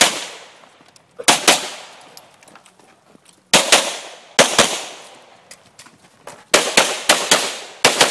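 Glock 34 9mm pistol fired in quick double-taps, two shots about a fifth of a second apart, with pauses of one to two seconds between pairs, each shot followed by a short echo.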